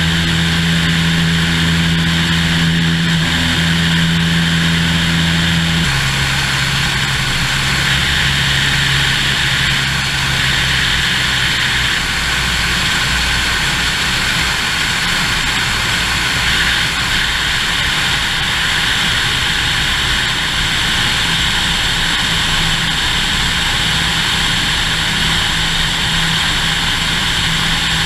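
Cessna single-engine propeller airplane in flight, its engine and propeller droning steadily under a constant rush of wind over the outside-mounted camera. About six seconds in, the engine note drops to a lower, steady pitch.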